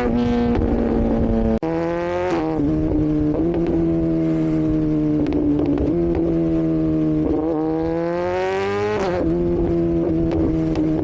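Motorcycle engine and exhaust while riding, the pitch climbing as the bike accelerates, about two seconds in and again about eight seconds in, and dropping back at each gear change. The sound cuts out briefly about a second and a half in.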